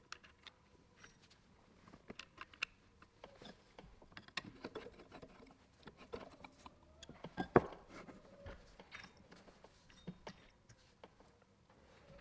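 Small irregular clicks and scraping of hands fitting a carbon brush into the brass brush holder of an old electric motor's cast end housing, with one sharper knock about halfway through.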